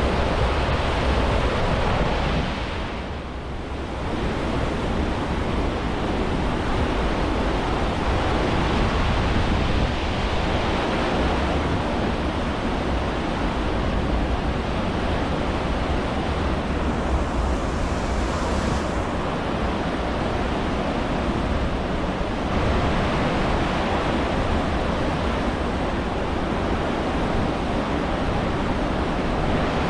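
Steady rushing and hissing of the churning wake behind the cruise ship Symphony of the Seas, with wind buffeting the microphone as a low rumble underneath. The sound dips briefly about three seconds in, then carries on unchanged.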